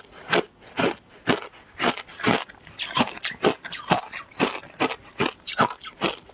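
Someone chewing shaved ice, with crisp crunches about twice a second.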